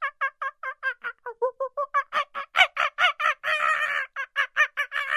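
Domestic fowl calling in a fast run of short, pitched, repeated notes, about five a second, which run together into longer drawn-out stretches about three and a half seconds in and again near the end.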